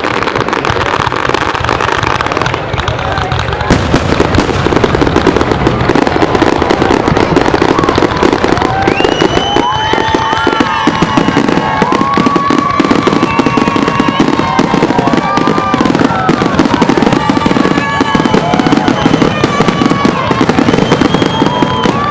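Fireworks going off in rapid succession, a dense crackle of bursts from about four seconds in. Sliding whistle-like tones ride over the crackle from about nine seconds in.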